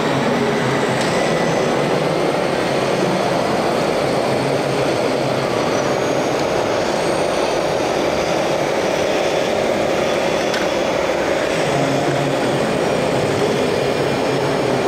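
Steady running noise of radio-controlled model trucks and construction machines, heard over the hum of a busy exhibition hall.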